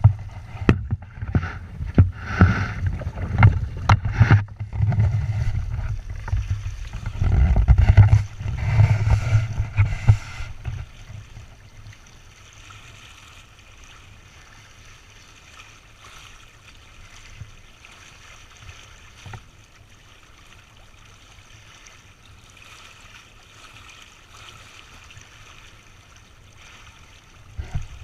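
Wind buffeting the microphone and water rushing along the hull of a Windrider 17 trimaran under sail. The loud gusty rumbling dies down about eleven seconds in, leaving a quieter steady wash of water, and it picks up again just at the end.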